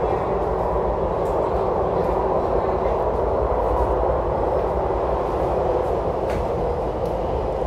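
Steady running noise of an MTR C-Train electric multiple unit heard from inside the passenger cabin, an even rumble with a faint click about six seconds in.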